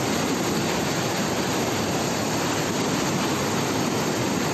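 Muddy floodwater torrent rushing down a street: a steady, unbroken rush of water.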